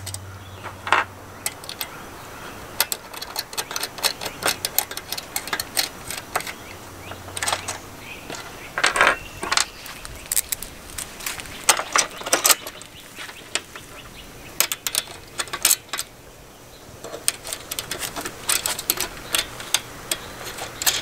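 Small metal clicks and clinks, coming irregularly, as bolts, washers and nuts are handled and hand-threaded onto a metal solar panel mounting bracket on the panel's frame.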